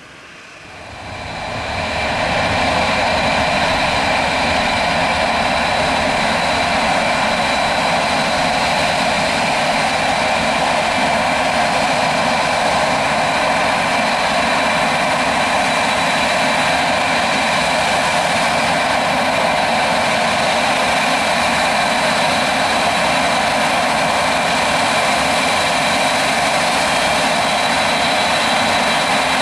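Turbofan engines of a four-engine wide-body jet airliner running steadily, a loud rush with a high whine held at one pitch. The sound swells up over the first two seconds.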